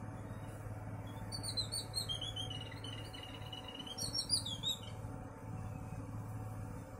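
A bird singing: quick high chirps and a run of repeated, slightly falling notes, starting about a second in and stopping about five seconds in, over a steady low hum.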